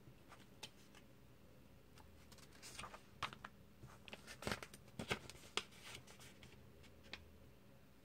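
Comic book pages being turned by hand: soft paper rustles and a handful of short, crisp ticks, bunched in the middle and loudest then.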